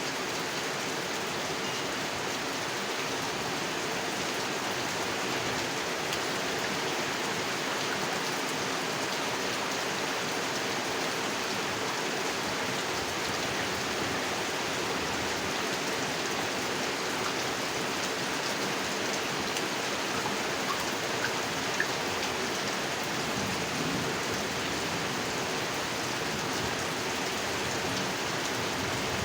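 Steady rain falling on a pond, an even hiss of drops on water, with a couple of slightly louder drops about two-thirds of the way through.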